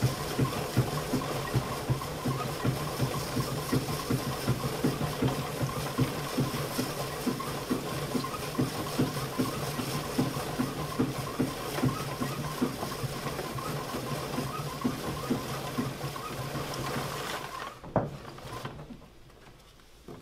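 Pianola rewinding its paper music roll: the air motor and spool mechanism whir steadily with a fast, even pulsing. It stops about three seconds before the end, followed by a click and the rustle of the roll being lifted out of the spool box.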